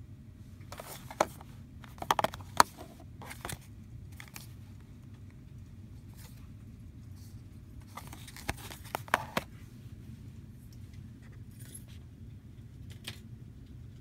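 Retail blister package, a card box with a clear plastic window, handled and turned over by hand: short crackles and clicks in two clusters, about a second in and again about eight seconds in, over a steady low hum.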